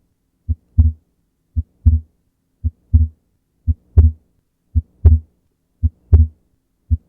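Heart sounds demonstrating wide splitting of S2, regular at about one beat a second with seven beats. Each beat is a short, sharp S1 followed about a third of a second later by a louder, longer S2, which is split into separate aortic (A2) and pulmonary (P2) closure sounds because the pulmonary valve closes late.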